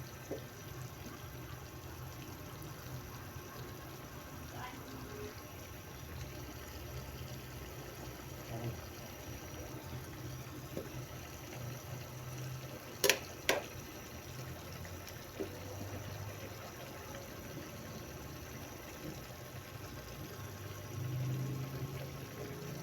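Water or liquid sounds in a kitchen, steady throughout, with two sharp clicks about halfway through.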